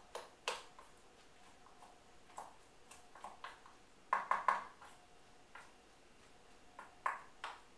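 Wooden spoon stirring a bowl of zucchini stuffing, knocking against the bowl a few times, with a quick run of knocks about four seconds in.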